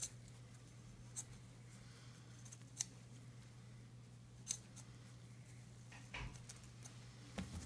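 Angled bandage scissors snipping through the cotton padding of a leg cast, about six sharp single snips spaced a second or so apart, over a steady low hum.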